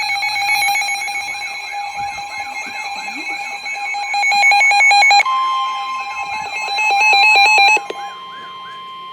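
Several weather radios sounding their alert tones at once for a severe thunderstorm warning. A steady tone, a tone warbling up and down a couple of times a second and loud bursts of rapid beeping overlap. About five seconds in a higher steady tone starts and holds, and the beeping stops shortly before the end.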